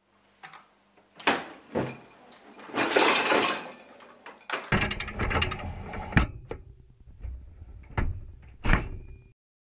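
Dishwasher door clicking open and lowering, then a wire rack rolling out on its runners. After that come clinks and sharp knocks of plates and cutlery in the racks over a low rumble as a toy car is set into the cutlery basket. The sound cuts off suddenly near the end.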